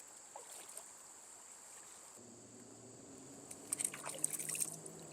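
Faint outdoor ambience of a flowing stream with a steady high-pitched insect drone, like crickets. A brief flurry of clicks and rustles comes around four seconds in.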